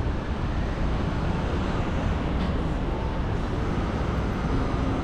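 Steady city street noise: road traffic with a continuous low rumble and hiss.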